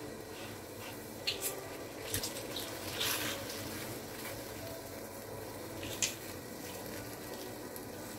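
Pot of water at a rolling boil, a steady bubbling hiss, with a few brief splashes as salt and then Chinese broccoli go into the water, the loudest about three seconds in.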